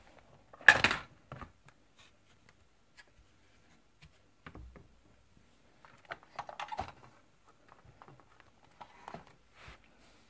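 Clicks, scrapes and clatter of a tower fan's plastic casing being handled and pried apart, with a loud crackling knock about a second in and bursts of clicking around six and nine seconds.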